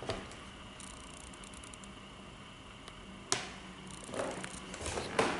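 Footsteps on old wooden floorboards in a large empty room, a run of soft knocks near the end, with a few sharp clicks, one loud one about three seconds in, over a faint steady hum.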